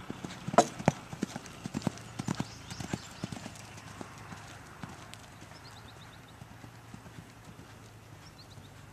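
Hoofbeats of a bay large pony cantering on arena sand, loudest in the first two or three seconds as it passes close, then fading as it moves away.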